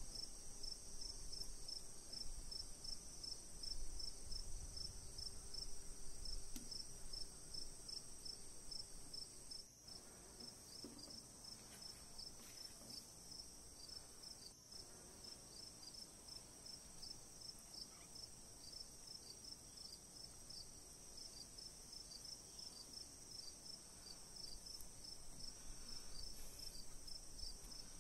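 Insects, crickets among them, chirping steadily in the background: a continuous high trill with a regular chirp about three times a second.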